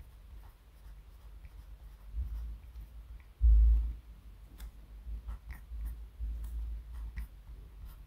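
Rotring 600 0.5 mm mechanical pencil writing on grid paper, with the volume turned up: light scratching and ticking of the lead against the paper over low rumbly handling bumps. A dull low thump about three and a half seconds in is the loudest sound.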